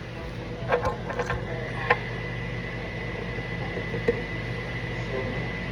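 Steady mechanical hum of a running kitchen appliance, with a thin high whine joining about two seconds in. A few light clicks and knocks come in the first two seconds and once more near four seconds.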